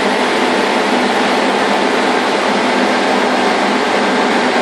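Rotary screw air compressor running steadily: a loud, even machine noise with a constant whine.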